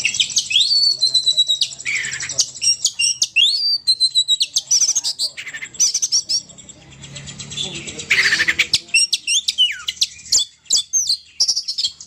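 Bird calls of the kind played as a lure for the bird called burung poci: a dense run of quick, high chirps and short rising and falling whistled notes, with a brief lull a little past the middle.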